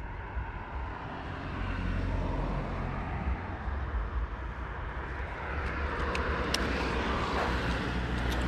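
A steady engine rumble that swells over the second half, as of a passing vehicle, with a few faint clicks.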